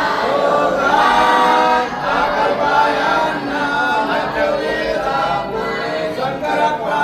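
A group of voices chanting together in unison, reciting Hindu ritual mantras.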